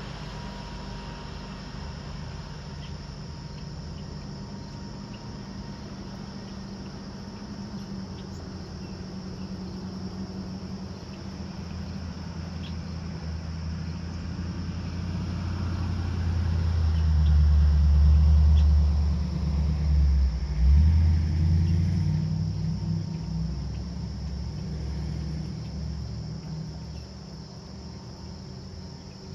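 A motorboat's engine droning across the water, growing louder to a peak a little past halfway and then fading as the boat turns away. Crickets chirp steadily throughout.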